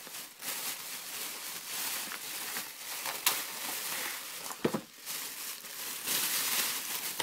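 Thin plastic shopping bag rustling and crinkling as it is handled and pulled away from a padded mailer, with a sharp crackle about three seconds in and a dull thump a little over a second later.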